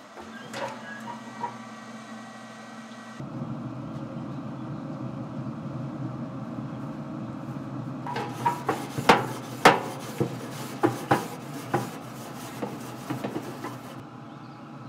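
Grill scraper rasping and clanking across the metal grates of a pellet grill, a run of sharp strokes in the second half, over a steady low hum.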